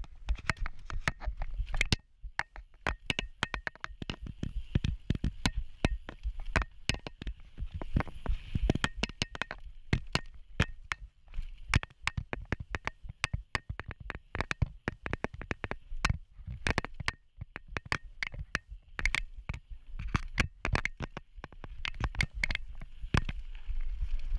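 Mountain bike jolting over a dirt singletrack: many irregular knocks and rattles from the bike and its handlebar-mounted camera over bumps and roots, over a low rumble of wind and rolling tyres.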